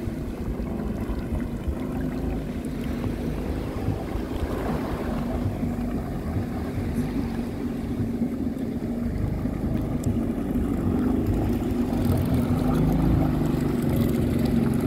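Jet ski engine running at low speed, a steady hum over churning water, growing louder near the end.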